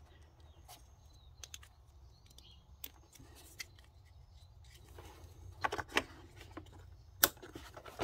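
Small plastic clicks of crimped wire terminals being pushed home into a new air flow meter connector body, a handful of ticks over a faint low hum, with a sharper click about seven seconds in.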